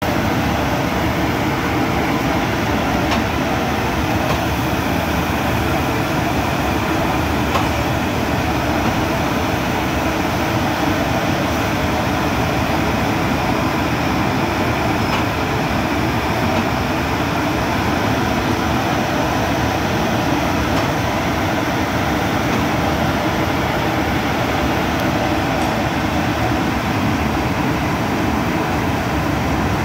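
Automatic railway coach washing plant in operation: a steady, unbroken rush of water spray and running machinery as passenger coaches pass through the washer.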